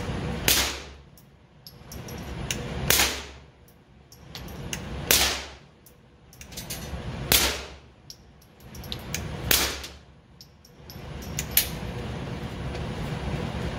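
Gunshots from other shooters on the range: five sharp reports at an even pace, about one every two seconds, with a few fainter cracks between them.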